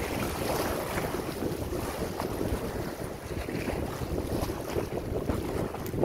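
Small sea waves washing and splashing over shoreline rocks, a steady rise and fall of surging water, with wind buffeting the microphone.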